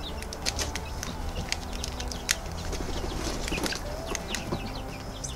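Thin black plastic seedling cell tray crackling in short, irregular clicks as its cells are squeezed to ease the squash seedlings and their root balls out.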